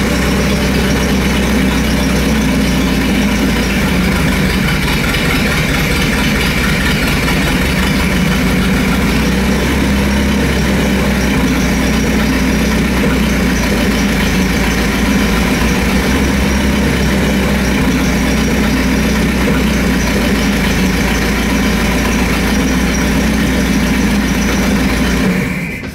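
MerCruiser 3.0 inline four-cylinder marine engine idling steadily at about 500 rpm, a little low, run briefly without cooling water. It shuts off just before the end.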